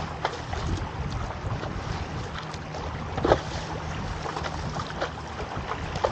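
Wind buffeting the microphone over choppy water lapping and splashing around a stand-up paddleboard, with a louder splash about three seconds in.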